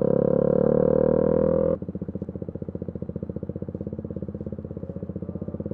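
KTM 200 Duke's single-cylinder engine running on steady throttle, its note creeping slightly higher. About two seconds in it drops abruptly to a quieter, evenly pulsing beat as the rider comes off the throttle.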